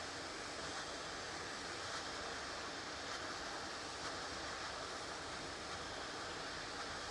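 Steady hiss of airflow from a hot air rework station nozzle, held on the board to melt the solder while a fuse holder is pushed out.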